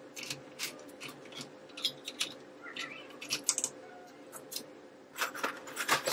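Irregular light clicks and taps of kitchen items being handled on a countertop, with louder knocks near the end as a wall cabinet door is opened and dishes inside are reached for. A faint steady hum runs underneath.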